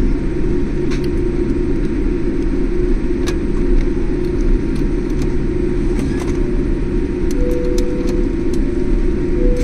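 Airliner cabin noise as the jet taxis on the ground: a steady low rumble of engines and rolling wheels, with scattered light clicks throughout and a faint short tone that comes and goes near the end.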